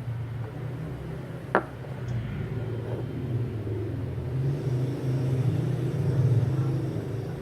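Low, steady rumble of a running motor, with one sharp click about one and a half seconds in.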